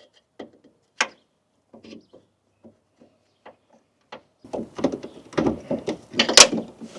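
Hand tools and metal parts being handled: scattered light clicks and knocks, then a busier stretch of clattering and rattling from about four and a half seconds in, with one sharp click near the end.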